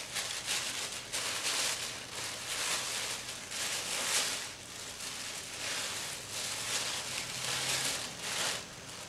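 Crinkling and rustling of crumpled gift wrapping paper being pulled apart by hand, in irregular bursts as a present is unwrapped.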